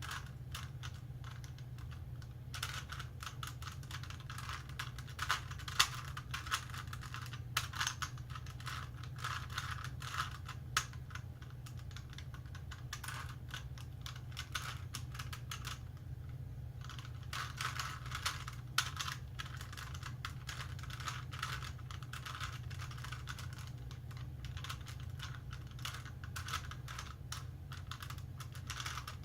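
A plastic Rubik's Cube being twisted by hand, its layers clicking and clacking in rapid runs of turns, with a pause of a few seconds near the middle. A steady low hum runs underneath.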